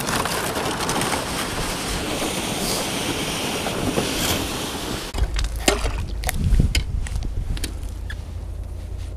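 Sled of ice-fishing gear dragged over snow-covered lake ice, a steady scraping hiss. About five seconds in the hiss stops and a run of sharp knocks follows, roughly two a second, over a low rumble, as ice is chipped at a test hole.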